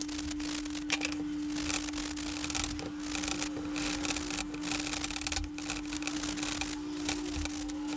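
Sanding by hand: a run of irregular rubbing strokes of abrasive on the toy's surface, with short pauses, over a steady low hum.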